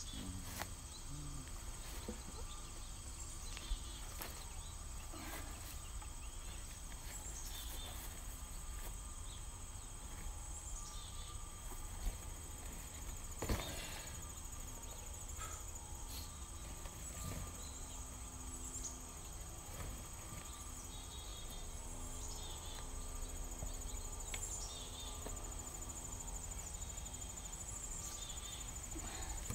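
A steady, high-pitched insect trill runs throughout, with short falling chirps every few seconds and a few sharp knocks, the loudest about halfway through.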